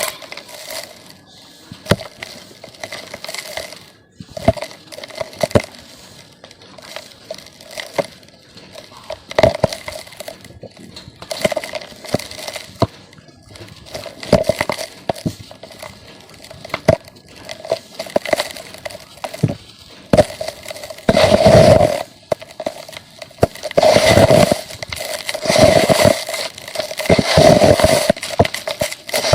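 Lumps of dry red dirt being crushed and crumbled, a string of sharp cracks and gritty crumbling. It grows louder and heavier in the last third, with longer bursts of crushing.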